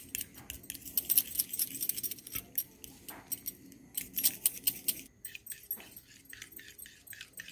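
Metal fork beating eggs and cornflour in a glass bowl: rapid, irregular clicks of metal on glass, thinning out after about five seconds as the batter turns smooth.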